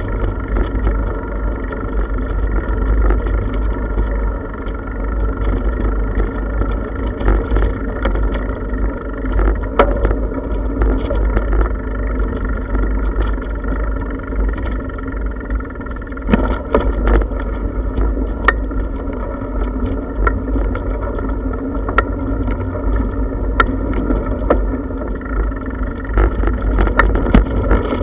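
Bicycle rolling over brick paving, heard through a camera mounted on the bike: a steady, muffled rumble of tyres and frame vibration with wind on the microphone. Sharp rattling clicks come at irregular moments, several of them in the second half.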